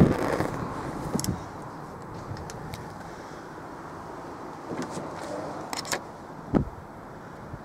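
Steady low background noise with a few light clicks and one dull knock about six and a half seconds in.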